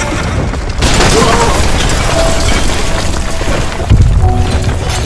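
Film sound design of music over a deep, continuous rumble of breaking rock, with a heavy boom about four seconds in.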